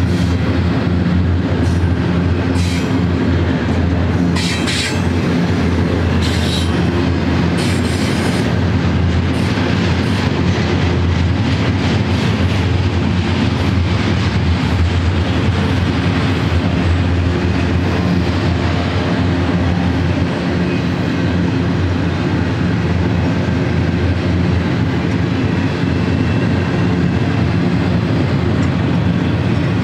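Double-stack intermodal train's well cars rolling past at speed: a steady, loud rumble of steel wheels on rail with clickety-clack, and a few brief high wheel screeches a few seconds in.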